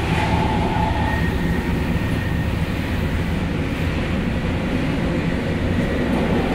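Sendai Subway 1000N series train braking, heard from inside the car: steady running rumble under the Mitsubishi IGBT-VVVF inverter and motor tone. The tone drops out about a second in and comes back near the end, a notch-off partway through braking.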